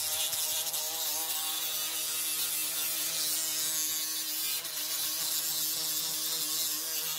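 Small cordless grinder running steadily with its grinding bit against steel, grinding the sharp corners off a pitman arm puller: a steady motor whine under a hiss of grinding.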